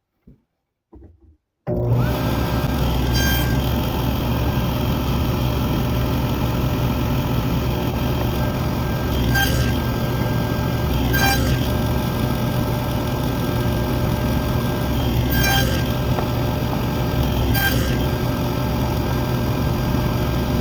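A stationary woodworking power tool runs steadily from about two seconds in while it cuts shallow 1/8-inch end dados in wooden wall pieces, with five brief sharp knocks along the way.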